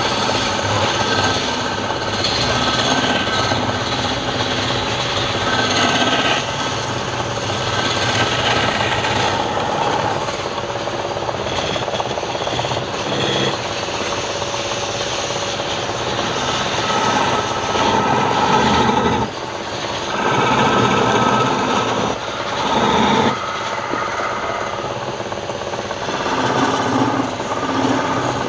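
A woodworking power tool running continuously while wood is being cut or sanded, a steady motor tone under an uneven rasping that swells and eases as the work is pressed to it.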